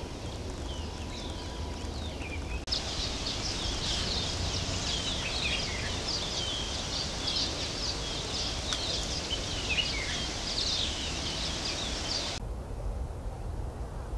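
A chorus of many small birds chirping and twittering over a low background rumble. The chorus becomes much denser about three seconds in and cuts off sharply near the end.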